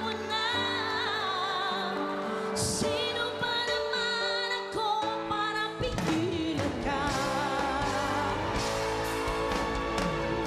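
A woman singing a pop ballad with wavering vibrato into a microphone, backed by a live band of drums, bass guitar and keyboard. The drums and cymbals come in stronger about six seconds in.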